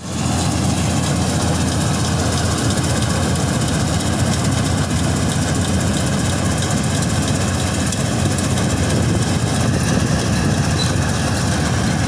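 National combine harvester running steadily while harvesting mung beans: its diesel engine and machinery make a loud, even, low drone.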